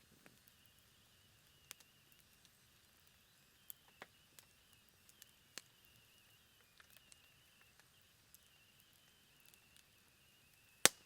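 Low, ember-like wood campfire crackling with sparse, scattered pops, and one loud sharp snap of burning wood near the end.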